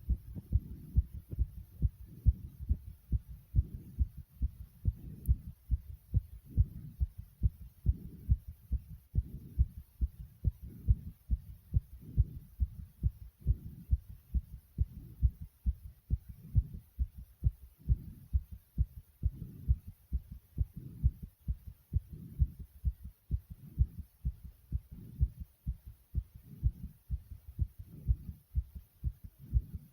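A human heartbeat recorded close up after exercise: a steady, regular run of deep low thumps.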